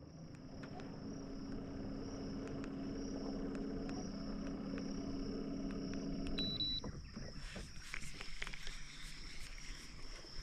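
A boat motor hums at a steady pitch for about six seconds, then stops. Insects keep up a steady high drone behind it.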